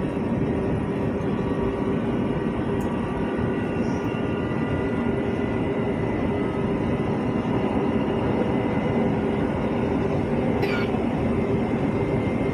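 Moving elevated metro train heard from inside the carriage: a steady running rumble with a constant electric hum, and a faint click about ten seconds in.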